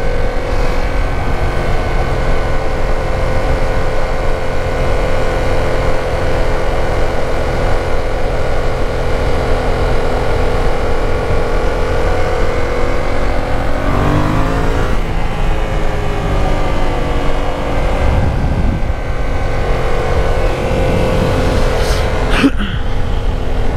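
Yamaha MT-07's 689 cc parallel-twin engine running steadily while the motorcycle cruises, heard over heavy wind rumble on the microphone. About fourteen seconds in, the engine note dips and then climbs again before it settles back to a steady pitch.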